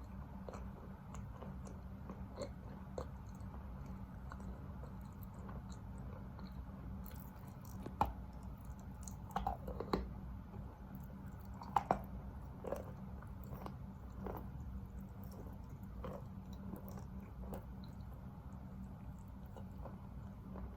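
Close-up chewing of a piece of wet Khrapovsky chalk, grainy and chewed down to a paste. Soft wet crunching and clicking runs throughout, with a few louder bites and crunches around the middle.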